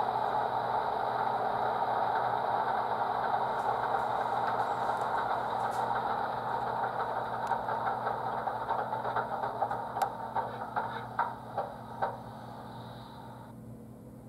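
Simulated diesel locomotive engine sound from an ESU Select sound decoder, played through a small 23 mm speaker in an HO-scale model locomotive. It runs steadily, then dies down over the last several seconds with a series of sharp ticks and clanks, and cuts off shortly before the end.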